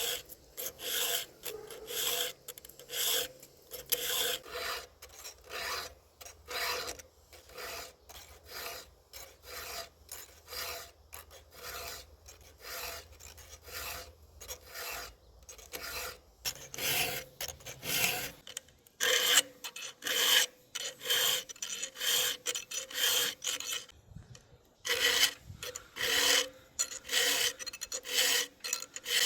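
Hand file rasping across the teeth of a chainsaw chain in a steady rhythm of about two strokes a second, with a brief pause late on.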